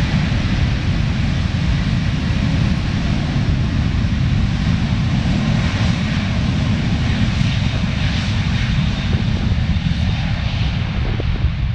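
Airbus A330 airliner's jet engines at takeoff power: a loud, steady rumble with hiss, the upper part easing slightly toward the end.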